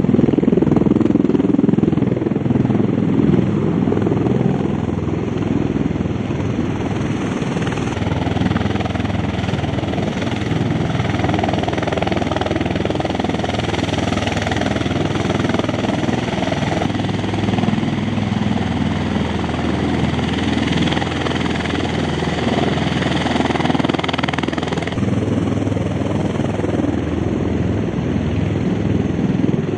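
Loud, continuous engine noise of powered vehicles or machinery, changing abruptly about 8, 17 and 25 seconds in.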